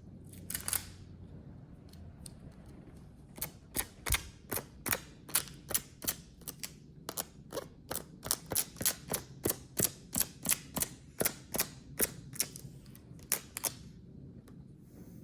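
A quick, irregular run of sharp little taps, about three to four a second, as a dust-removal sticker is dabbed again and again on the iPad's glass screen to lift off dust. The taps begin a few seconds in and stop shortly before the end.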